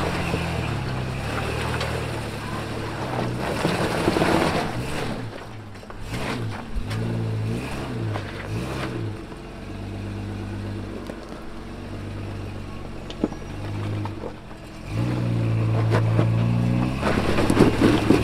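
Off-road vehicle engine revving up and down as it works along a trail: several short throttle blips a few seconds in, then a harder, sustained pull near the end, with rough bursts of noise around it.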